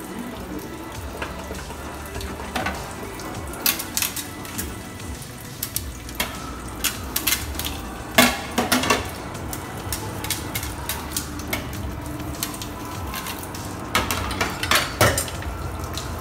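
Dishes washed by hand in a stainless steel sink. Tap water runs steadily while steel vessels and a plastic lid clatter and knock, loudest about eight seconds in and again in a cluster near the end.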